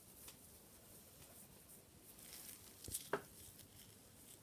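Faint, short scraping strokes of a scalpel blade shaving hardened callus from the sole of a foot, with two brief clicks close together about three seconds in.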